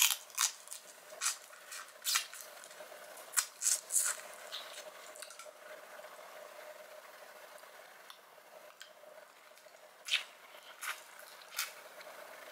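Close-up wet eating sounds of a boiled Cajun shrimp eaten by hand: short smacks and sucks of lips and fingers, a cluster in the first four seconds and again near the end. A faint steady hum sits underneath.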